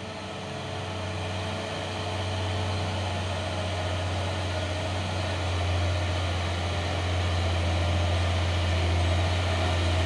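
Diesel engine of a Hino 500 box truck climbing slowly uphill, a steady low drone that grows gradually louder as the truck approaches.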